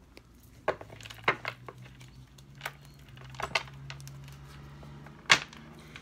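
Tarot cards being handled on a table: a handful of sharp snaps and taps, the loudest about five seconds in.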